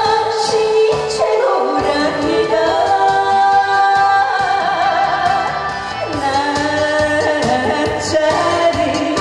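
A woman singing a Korean trot song into a handheld microphone over an amplified backing track with a steady beat, drawing out long sung notes.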